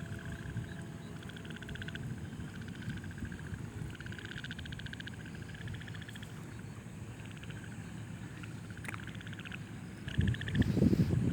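Frogs calling at night: repeated short trills of rapid pulses, one after another, over a steady low background noise. A louder, rougher low noise comes in near the end.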